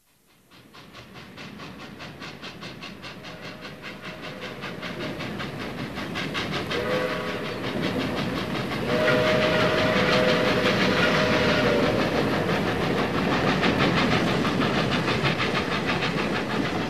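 Steam locomotive sound: fast, even chuffing that fades in and keeps growing louder, with a short whistle about seven seconds in and a longer whistle blast about nine seconds in.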